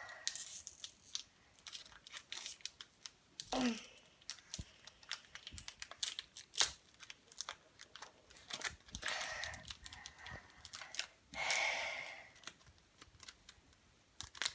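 Foil wrapper of a trading-card booster pack crinkling and crackling in irregular bursts as it is handled and pulled at, in attempts to tear it open. A brief falling squeak about three and a half seconds in.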